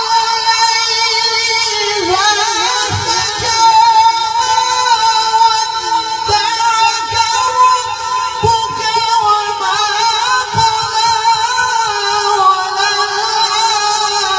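A male qari reciting the Quran in a melodic, drawn-out style, holding long notes that waver slowly in pitch with vocal ornaments.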